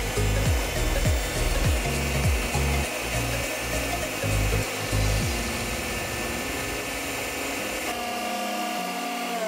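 Electric stand mixer running, its beaters whirring through cake batter with a steady motor whine that shifts in pitch near the end.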